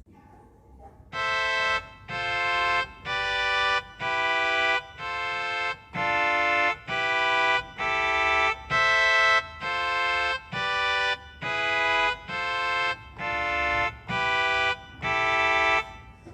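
Casio CT-S300 portable keyboard playing a tone demo: a run of about fifteen held chords, roughly one a second, each cut off briefly before the next, starting about a second in.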